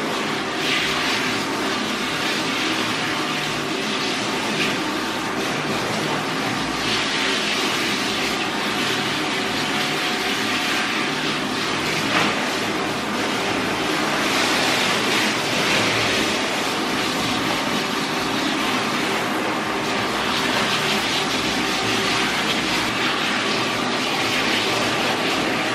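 Water spraying steadily from a handheld shower sprayer onto a wet dog's coat in a stainless-steel tub, a continuous hiss, over a steady mechanical hum.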